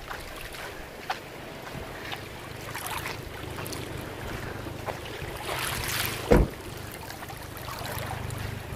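Wind buffeting the microphone over the wash of small waves on the shore, with a light knock about a second in and a louder thump a little past the middle.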